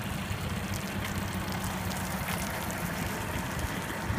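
Yamaha three-cylinder four-stroke outboard engine idling steadily, with a constant hiss of splashing water.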